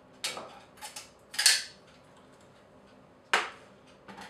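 Several short, sharp clicks and knocks from film cameras being handled, the loudest about a second and a half in and another a little past three seconds.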